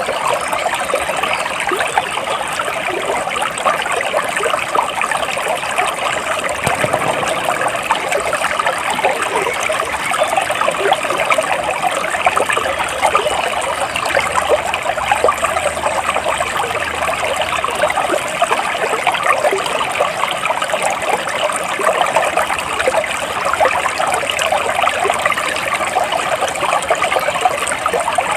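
Stream water flowing and trickling steadily, a continuous babbling rush.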